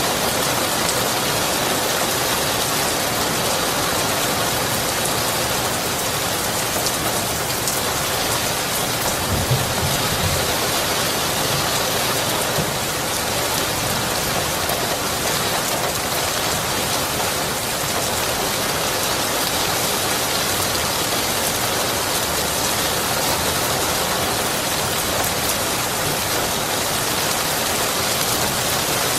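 Steady, even rainfall, drops pattering densely on surfaces. About ten seconds in there is one brief low thump.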